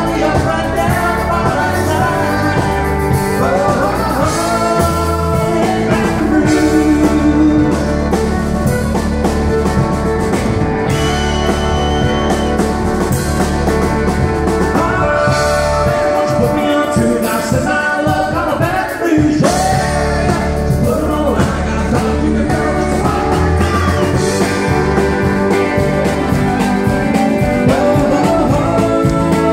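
Live country-western band playing: a man singing over electric guitar, drums, keyboard and fiddle. The low end drops away briefly a little past the middle.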